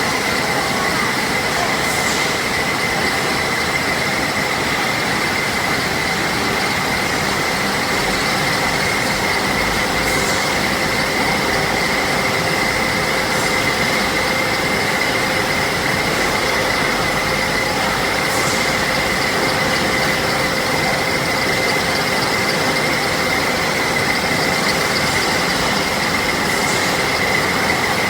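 Wire drawing machine running steadily as it draws wire down from 2.5 mm to 0.5 mm: a loud, even machine noise with a constant high whine.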